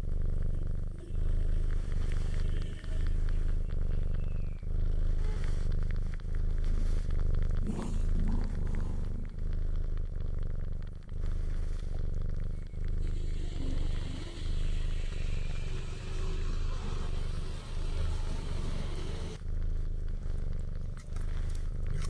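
Cat purring close to the microphone while a kitten nurses: a steady low rumble that pauses briefly about once a second with each breath.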